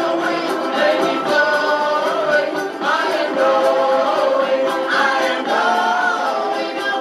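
Choral music: several voices singing held, harmonised notes that move from chord to chord.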